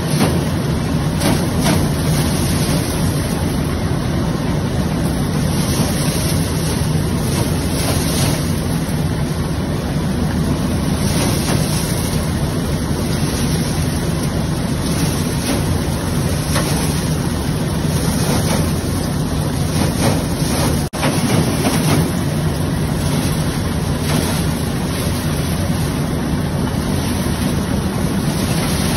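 A belt-driven stationary threshing machine runs steadily as cereal stalks are fed through it, giving a loud, continuous mechanical noise of drum and belts. The sound drops out for an instant about three-quarters of the way through.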